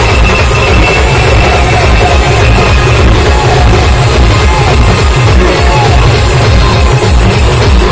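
Loud music with a heavy, dense bass beat played through large sound systems in a sound clash, with both rigs sounding at once.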